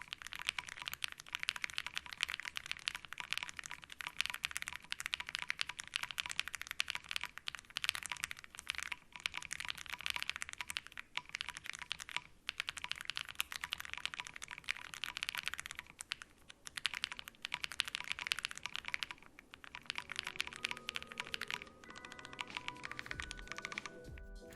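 Typing sound test on a stock Akko MOD007 V3 gasket-mount mechanical keyboard with Akko Matcha Green Pro switches and Mochi Dango keycaps, built without bottom foam. It gives a fast, continuous run of keystroke clacks with a couple of short pauses. The builder finds the sound a little hollow.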